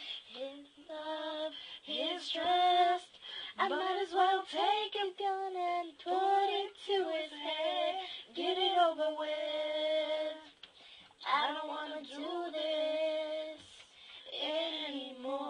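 Two girls singing together, long held and sliding notes in phrases with short breaks between them.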